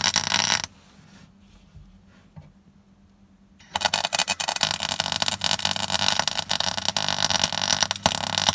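MIG welding arc crackling steadily while plug-welding holes in the steel cross member of a classic Mini. It stops under a second in, is quiet for about three seconds, then strikes up again and keeps crackling.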